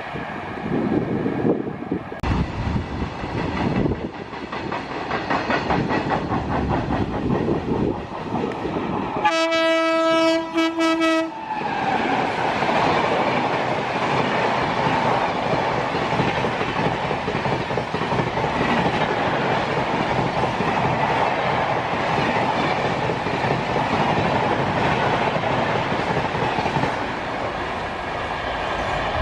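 Express train passing at speed: its wheels clatter over the rail joints, the horn sounds once for about two seconds near the middle, and then a steady loud rush of coaches going by.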